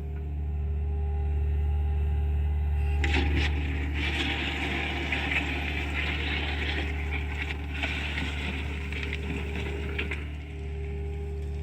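John Deere excavator's diesel engine running steadily with a low drone. From about three seconds in until near the end, a louder hissing, clattering layer joins in as the machine works.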